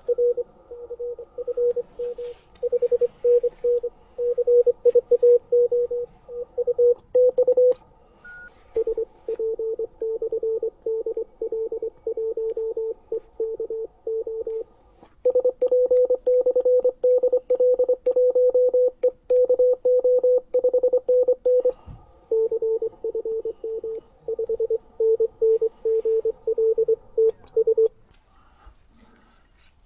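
Morse code (CW) on an amateur radio transceiver: keyed tones near 500 Hz, a stretch at one pitch and then a stretch at a slightly lower pitch, back and forth twice, as two stations exchange. The keying stops near the end.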